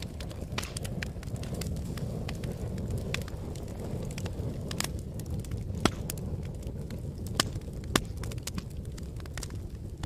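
Wood fire crackling: a steady low flame noise with frequent sharp snaps and pops, the loudest about six and eight seconds in.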